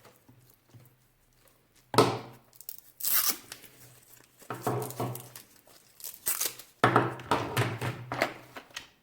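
Plastic packaging being crinkled and torn open in several short bursts, the longest and loudest near the end.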